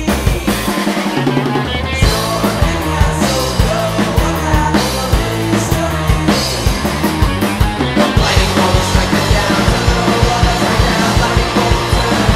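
Psych-punk rock band recording with a drum kit driving hard, over bass and other instruments. The full band comes in strongly about two seconds in, and the cymbals grow brighter from about eight seconds.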